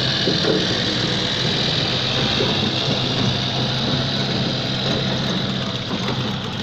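Tractor engine running steadily at an even, low speed: a constant hum under a broad hiss.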